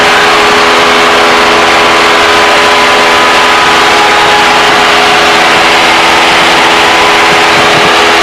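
Cessna 172's piston engine and propeller running steadily in flight, heard inside the cabin as a loud, even drone of several steady tones over a rushing hiss of air.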